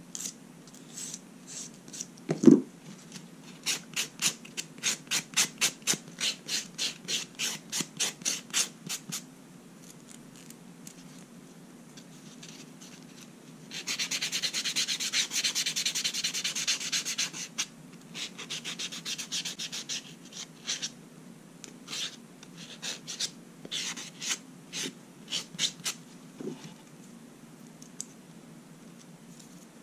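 Fingernail being filed: a run of quick, even back-and-forth strokes, about two or three a second, then a few seconds of continuous rubbing a little past the middle, then scattered single strokes. A soft knock sounds once a couple of seconds in.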